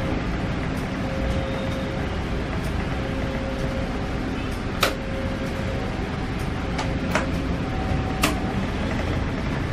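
Push-buttons on a railway crossing barrier control panel clicking a few times as the barrier is opened, over a steady rumble.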